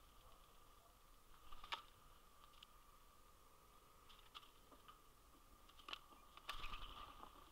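Scattered sharp taps and clicks of a blue jay landing and pecking on a wooden platform feeder tray strewn with seed, with a quick flurry of taps near the end.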